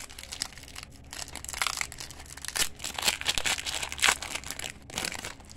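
Foil wrapper of a 1992-93 Fleer Ultra Hockey card pack being torn open and crinkled by hand: a continuous crackling rustle with sharper, louder tears scattered through it, the loudest about four seconds in.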